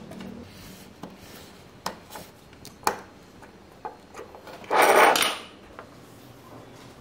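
Metal tweezers clicking a few times against a 9g micro servo's plastic case and circuit board, then a loud scraping rub of about half a second, about five seconds in, as the servo's control board is pried out.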